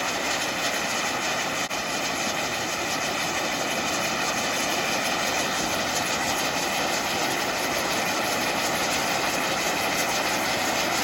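A 500-gram spinning firework fountain burning, with a steady, unbroken hiss and whoosh of spraying sparks.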